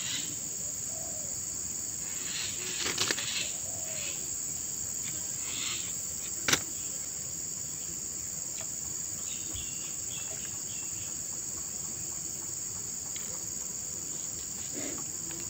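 Steady high-pitched drone of insects (crickets or cicadas) from the riverside vegetation. A few clicks come about three seconds in, and one sharp click about six and a half seconds in.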